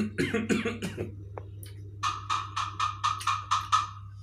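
A man coughing, choked on a mouthful of watermelon: a cluster of coughs in the first second, then about two seconds in a quick run of about eight short bursts.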